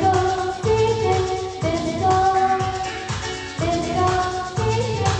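Hindi film-style song music with a beat, and a girl singing into a microphone.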